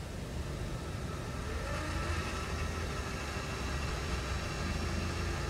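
Welding positioner's electric table-drive motor running as the table turns; its whine glides up in pitch about a second and a half in as it speeds up, then holds steady over a low hum.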